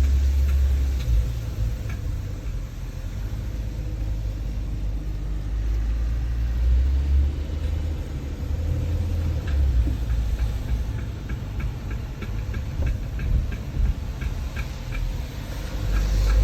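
Knocking from the rear end of a Mercedes-Benz W211: short, sharp knocks, several a second through the second half, over a low vehicle rumble. The owner does not know the cause.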